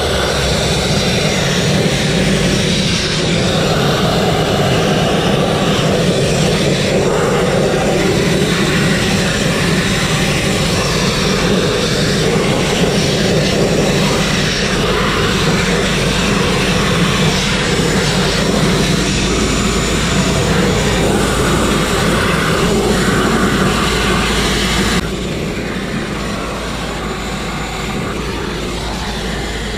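Compressed-air grit blasting nozzle firing abrasive at a truck's steel chassis and leaf springs, a loud steady hiss as it strips paint and rust. About 25 seconds in the sound drops abruptly, a little quieter.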